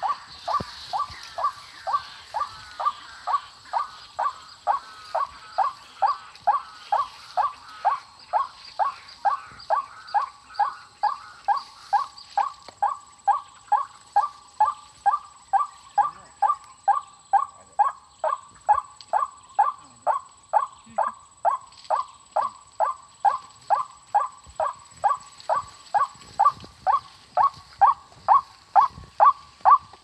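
White-breasted waterhen (ruak-ruak) calls: a short, falling note near 1 kHz repeated very evenly about twice a second, growing louder toward the end.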